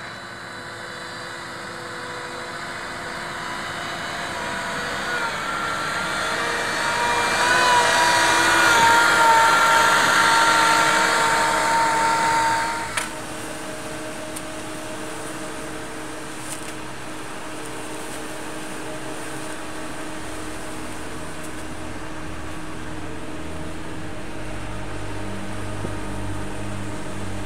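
CARMIX 3.5TT self-loading concrete mixer's diesel engine running as the machine drives, with a whine that grows louder and then cuts off suddenly about halfway through. A steadier, quieter machine hum follows, with a low rumble building near the end.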